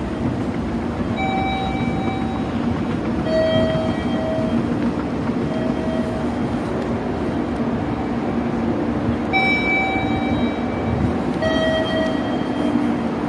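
Station platform ambience: a steady low hum from electric commuter trains standing at the platform, with short electronic tones sounding several times.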